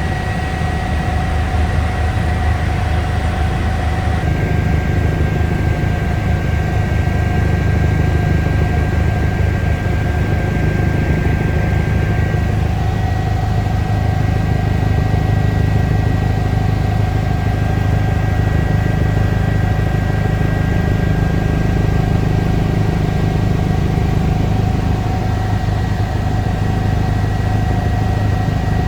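Eurocopter EC145 helicopter in flight: a steady, loud low drone of rotor and turbines with several steady high whining tones over it. The whining tones change about four seconds in.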